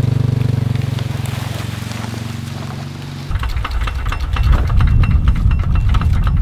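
A small engine idling steadily, fading over the first three seconds. After an abrupt cut come a low rumble and a run of knocks and wood crunching as a log is heaved onto a portable sawmill's bed.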